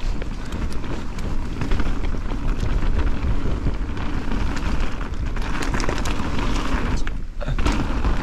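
Mountain bike riding fast down a dirt forest trail: tyres rolling over dirt and loose stones with a stream of rattling clicks over the bumps, under heavy wind rumble on the camera's microphone. The noise drops briefly about seven seconds in.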